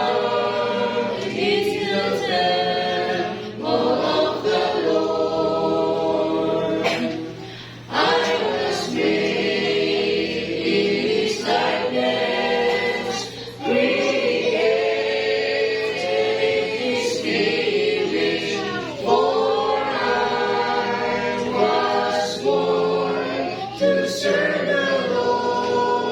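A church congregation singing a hymn without instruments: long held notes in slow phrases, with brief breaths between lines.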